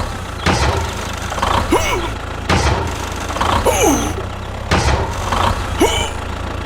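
A small motor of miniature machinery runs steadily with a low hum. About every two seconds there is a short knock, followed by a squeak that slides down in pitch.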